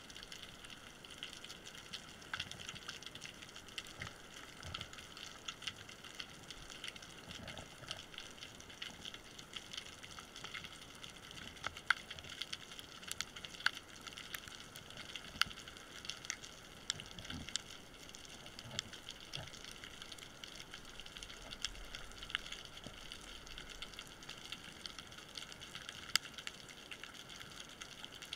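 Underwater sound of a rocky reef heard through a camera housing: a steady hiss full of constant, irregular crackling clicks, the typical crackle of snapping shrimp on a Mediterranean reef.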